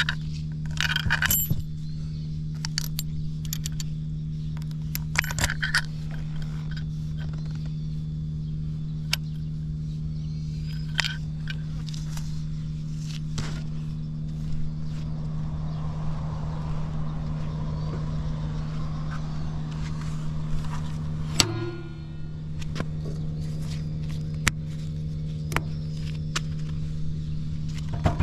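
Suzuki GN125H's 125 cc single-cylinder four-stroke engine idling steadily, with scattered light clicks and one sharp click about twenty seconds in.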